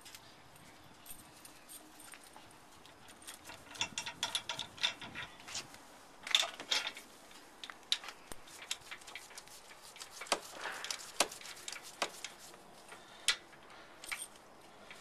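Metal clinks, clanks and rattles as a steel ProPride trailer-hitch shank is handled and worked in the vehicle's receiver, coming in scattered bursts, with a few single sharp cracks among them.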